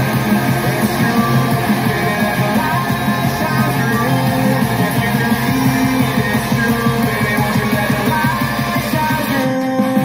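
A song with singing and a steady beat, played through a pair of Yamaha bookshelf speakers with 4-inch woofers and 1-inch dome tweeters, driven by a small TPA3110 class-D stereo amplifier with no tone controls. The music thins out briefly near the end.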